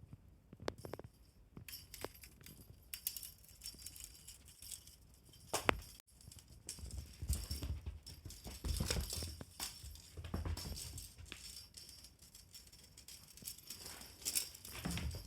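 Pets playing with a fishing-rod teaser toy: irregular taps, rattles and rustling with low thumps, busier in the second half.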